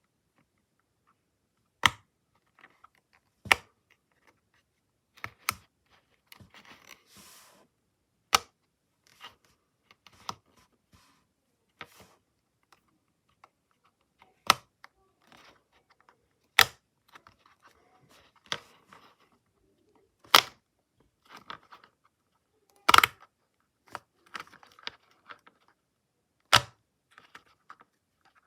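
Push-pop fidget toy: single sharp pops, one every two seconds or so at an uneven pace, with faint handling rustles between them.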